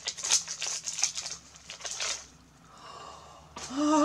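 Gift wrapping crinkling and tearing as a small package is unwrapped, for about two seconds. Near the end a woman's voice breaks in with a long, wavering excited exclamation.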